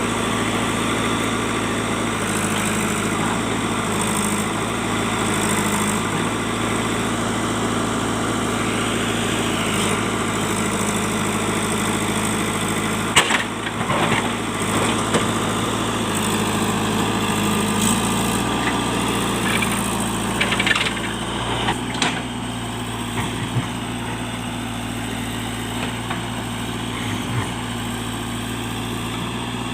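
JCB backhoe loader's diesel engine running steadily while working. Sharp cracks and knocks break in about halfway through and again about two-thirds of the way in, from the machine working on the trees.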